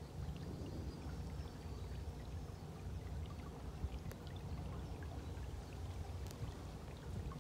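Narrowboat under way on a canal, heard from the bow: a steady low rumble with water washing and splashing along the hull.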